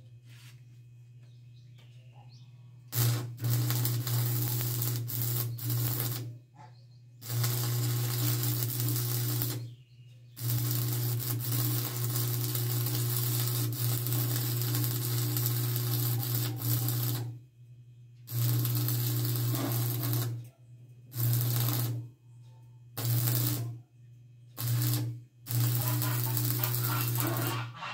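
Electric arc welding in repeated bursts of one to several seconds: the arc crackles, then starts and stops abruptly, over a steady low electrical hum.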